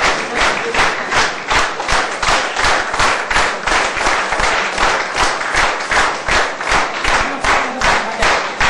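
Audience clapping together in a steady rhythm, about three claps a second.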